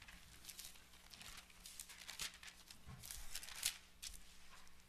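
Faint rustle of thin Bible pages being leafed through, several soft page turns in a row.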